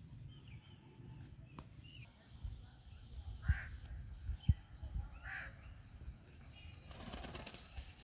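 A white pigeon flapping its wings while held in a person's hands: a few wingbeat thumps with feather rustles, the two loudest about a second apart in the middle. Small birds chirp faintly in the background.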